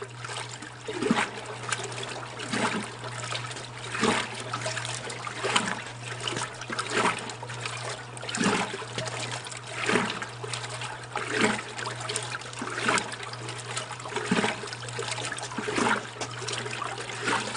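Old Kenmore wringer washing machine agitating on rinse: a steady motor hum, with the water sloshing in regular surges about every second and a half as the agitator swings.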